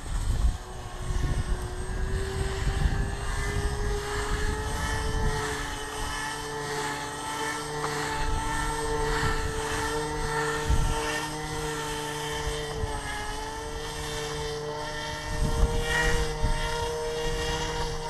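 Brushless electric motor and propeller of a radio-controlled airboat whining steadily. The pitch rises and dips slightly as the throttle changes.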